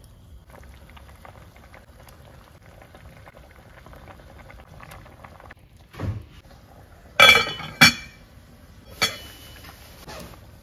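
Kimchi stew simmering in an enamel pot with a faint bubbling crackle, then a dull thump about six seconds in. Two loud, ringing clanks against the pot follow, and another near the end.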